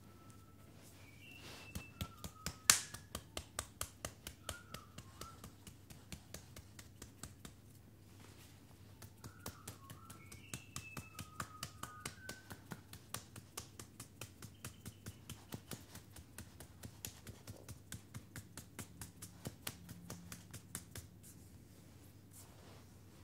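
Quick, even clicks from hands working briskly over a bare foot during a foot massage, about three a second, pausing briefly about a third of the way in. A bird chirps a few times in the background.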